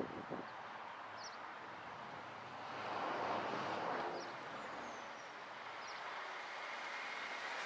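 Road traffic noise, with a vehicle passing about three seconds in that swells it for a second or so. A few faint, short high chirps sound over it.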